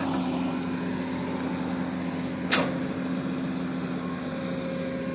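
Excavator engine running steadily, with one short sharp knock about two and a half seconds in.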